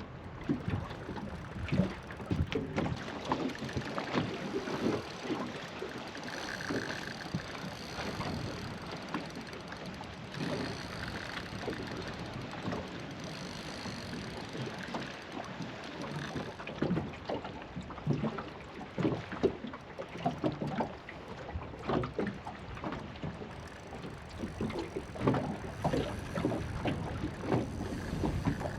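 Sounds of a small boat on the water: irregular knocks against the hull and water noise, with light wind on the microphone.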